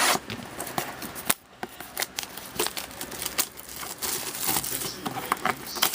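Plastic wrapping crinkling and tearing, with irregular cardboard and packaging clicks, as a sealed box of trading card packs is opened and handled. A sharp snap about a second in, then a brief lull before the crackling resumes.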